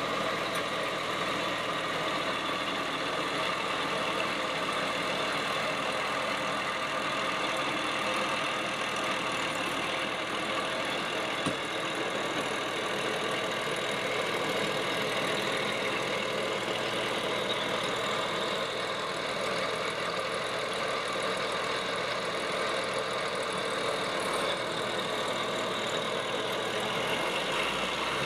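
Massey Ferguson 2705 tractor's six-cylinder diesel engine idling steadily.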